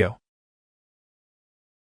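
The last syllable of a synthesized narrator voice, ending a fraction of a second in, then digital silence.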